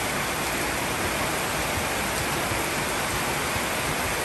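Heavy rain pouring down, a steady, even hiss with no let-up.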